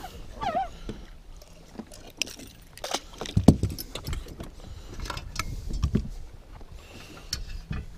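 Wind gusting on the microphone over the lake, with water lapping at a boat and scattered sharp knocks and clicks from handling a caught northern pike.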